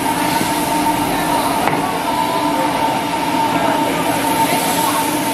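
Stir-frying in a wok: duck meat and ginger sizzling in sesame oil as a metal spatula turns them, over a loud, steady mechanical hum from the stall's cooking equipment. There is one short scrape of the spatula about a second and a half in.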